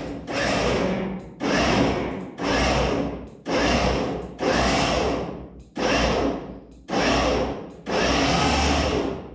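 Electric cable winch motor run in short pulses, about one a second, each starting sharply and dying away, as it hauls on a taut wire rope.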